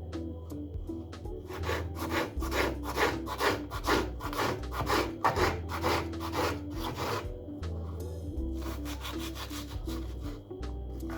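Repeated rubbing or scraping strokes, about two a second, over soft background music; they stop about seven seconds in and a fainter scraping follows near the end.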